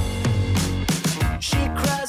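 Background music: a band-style pop-rock song with a steady beat.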